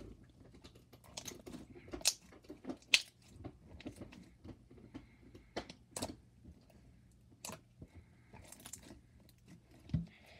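Thick, overactivated slime being stretched and pressed by hand, giving scattered sharp clicks and pops with soft squishing between them; the loudest click comes about three seconds in.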